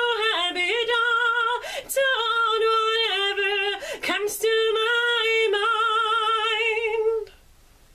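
A woman singing a close-miked studio vocal take: long held notes with wide vibrato, in phrases with short breaths between them. The voice cuts off sharply about seven seconds in.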